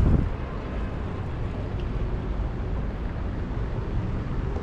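Steady low rumble of outdoor background noise, with a brief thump right at the start.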